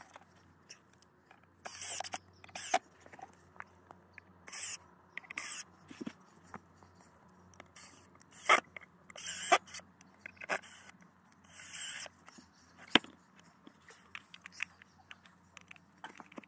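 Short bursts of scraping and rustling, about eight of them spread through the stretch, as cut log rounds are handled and shifted in dry leaves, with one sharp knock near the end.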